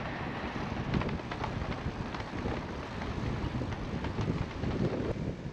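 Wind rushing over the microphone of a rider cycling along, an even, steady noise.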